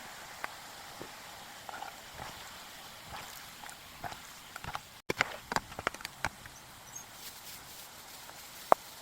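Chickpeas crackling in hot frying oil: scattered sharp pops over a faint hiss, with a denser run of pops just after a cut about halfway through and one loud pop near the end.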